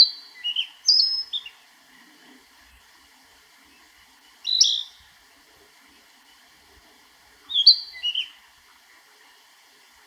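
Narcissus flycatcher singing: three short phrases of clear whistled notes that jump and slide in pitch, a few seconds apart.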